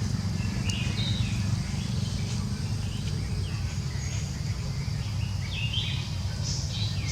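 Birds chirping in scattered short calls over a steady low outdoor rumble.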